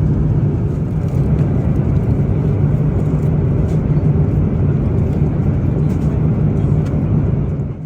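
Steady cabin noise of an Airbus A350-900 in flight: a constant rush of engine and airflow noise with a low, even hum. It cuts off abruptly at the end.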